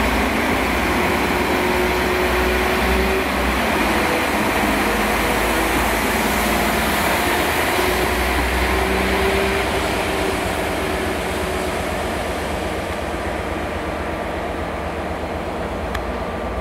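Class 197 diesel multiple unit running past on its diesel engines, with a steady engine note and rail rumble. It fades gradually from about ten seconds in as the train draws away.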